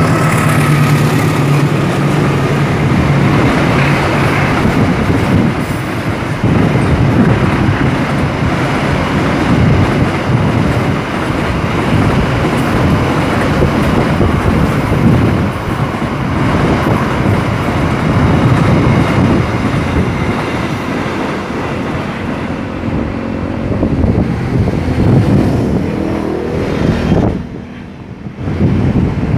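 Container freight train passing. A diesel-electric locomotive's engine gives a low steady drone for the first few seconds, then the wagons rumble and rattle steadily over the rails. The noise drops away about two seconds before the end as the last wagons clear.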